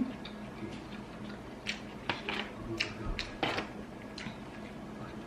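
Crab shell being cracked and picked apart by hand for its meat: scattered small clicks and crackles, a dozen or so, most of them in the second half.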